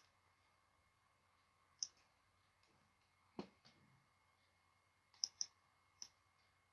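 Computer mouse button clicks while trimming lines in a CAD drawing: about six faint, sharp, separate clicks, two of them in quick succession about five seconds in.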